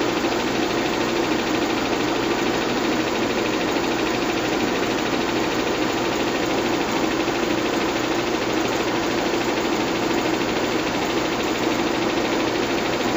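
Bell & Howell 122 LR 8mm film projector running at its highest speed: a steady motor whir with a fast, even mechanical clatter from the film transport.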